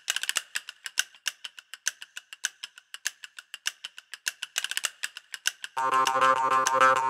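Intro music: a light, even ticking, a few ticks a second. About six seconds in, a sustained droning chord with many overtones comes in.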